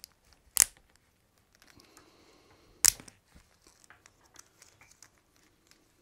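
Two sharp clicks, about half a second in and again about two seconds later, with faint rustling between them, as hands work apart the brittle old sleeving of a Porsche 356 wiring harness.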